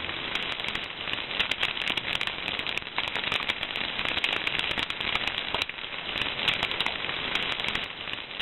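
Dense, steady crackling: many small pops and clicks over a hiss.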